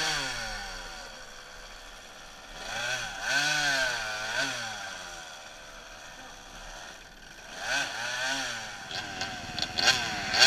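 Yamaha YZ125 two-stroke dirt bike engine revving in repeated swells and dropping back between them, the revs rising and falling several times. Near the end the sound cuts to another running engine with a few sharp knocks.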